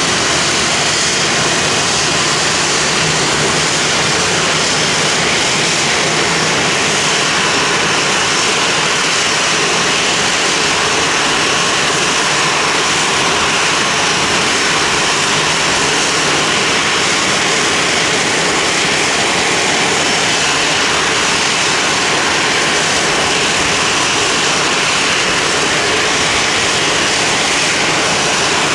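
Boeing 737-700 CFM56 jet engines running steadily: a constant loud rush and whine that holds the same pitch throughout.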